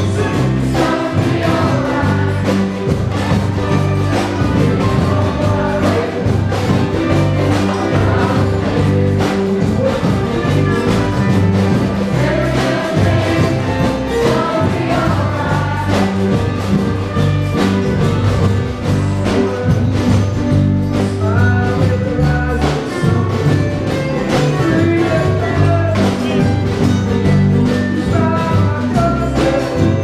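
Live band music: samba-style drumming with big surdo bass drums and a group of young singers, amplified through a stage sound system, with a steady beat and no breaks.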